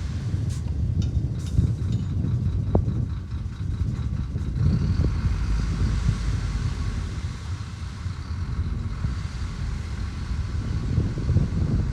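Heavy diesel engine of earth-moving machinery running steadily with a deep rumble, with a few faint clicks in the first two seconds.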